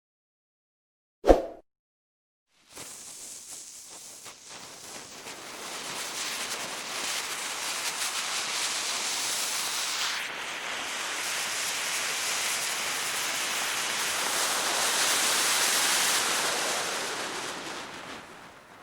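A burning fuse hissing and sizzling. It starts about three seconds in, swells over a few seconds, holds steady and dies away near the end. A single sharp click comes just before it.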